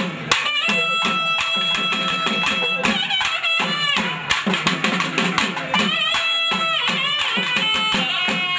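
Nadaswaram and thavil ensemble playing: a wind melody of long held notes that bend in pitch, over quick, sharp drum strokes.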